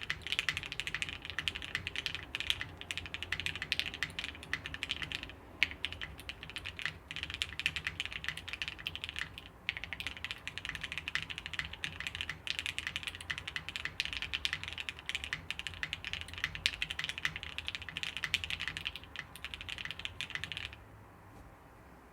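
Fast, continuous typing on a custom mechanical keyboard, the VLKBD Fingergun TKL prototype, built plateless with lubed Gateron Oil King linear switches and GMK keycaps. Dense key clicks with brief pauses, stopping about a second before the end.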